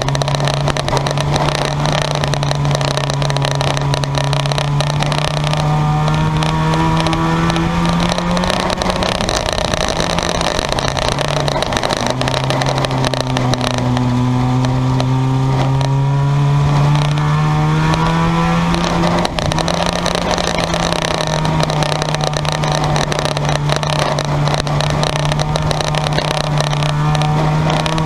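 Junk yard cars racing on a speedway, engines running hard. The loudest engine's pitch climbs steadily, drops off sharply about a third of the way in, then climbs again, with other cars' engines running underneath.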